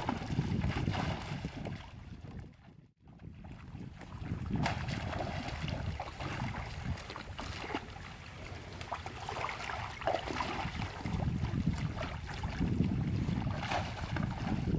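Shallow stream water splashing and sloshing as people wade through it and plunge bamboo fish-trap baskets down into it, with wind rumbling on the microphone. The sound drops out briefly about three seconds in.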